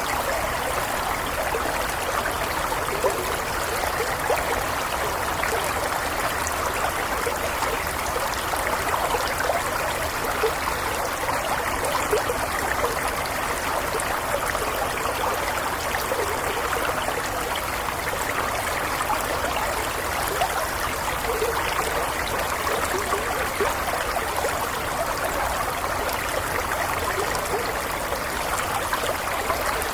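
A small stream flowing steadily over stones, with gentle trickling and bubbling water.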